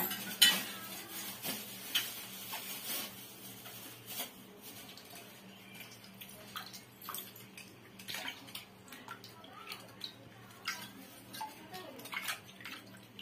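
Mangoes being washed by hand in a steel bowl of water: water sloshing and splashing, with scattered clinks and knocks of fruit and hands against the steel bowl and plate, a few louder ones in the first couple of seconds.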